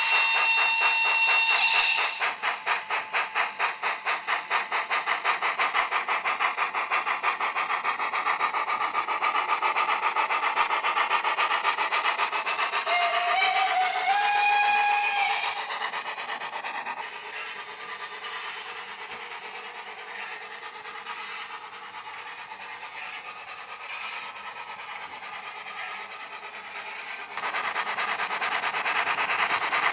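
HO-scale model train's digital sound decoder playing recorded train sounds through its small loudspeaker. A horn blast sounds in the first two seconds, then a fast, even rhythmic running sound. A second two-note horn rises in pitch about halfway through; after that the sound goes quieter until it grows louder again near the end.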